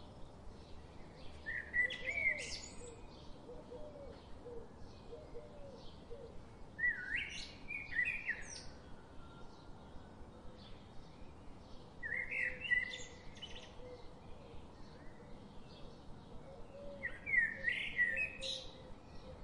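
A songbird singing a short phrase of quick rising and falling notes four times, about every five seconds, over a faint, even ticking of about three ticks a second.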